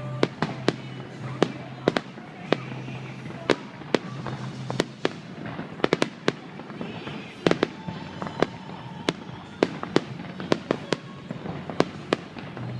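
Fireworks display: a long irregular run of sharp bangs from shells bursting, some single and some in quick clusters of two or three.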